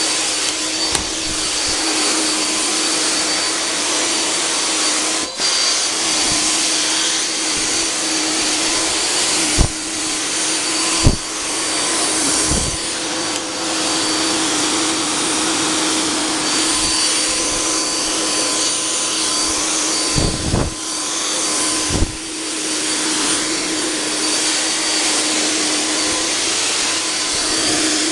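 Electric 'Volkodav' cold fog generator running steadily, its blower motor hissing and humming as it sprays insecticide mist, with a few dull low thumps scattered through.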